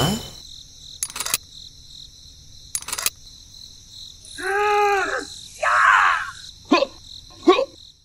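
Crickets chirping steadily, with two short clicks and then a few high-pitched, cartoon-like voice sounds past the middle: a rising-and-falling groan, a breathy cry and two short chirps near the end.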